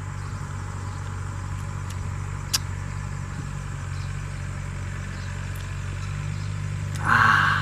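Steady low engine hum, like a motor idling, with a single sharp click about two and a half seconds in and a short louder noisy burst near the end.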